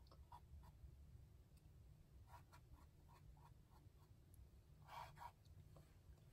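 Faint strokes of a small paintbrush on a stretched canvas, a run of short brush strokes about two seconds in and a slightly louder pair near five seconds, over a low steady hum.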